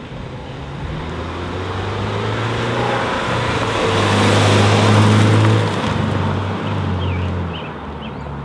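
Exhaust note of a 2011 Subaru Legacy 2.5i's 2.5-litre flat-four through dual Magnaflow mufflers as the car drives past: a low engine drone that grows louder as it approaches, is loudest about five seconds in, then fades as it pulls away. Birds chirp near the end.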